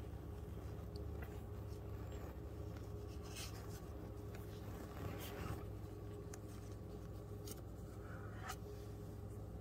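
Faint rustling on newspaper bedding with a few soft clicks, as a Pomeranian mother and her newborn puppies shift while nursing, over a steady low room hum.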